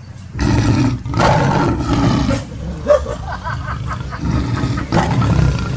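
Recorded tiger roars, in two long, rough, loud bouts with a quieter lull between them. The roar is a fake tiger's, not a real animal's.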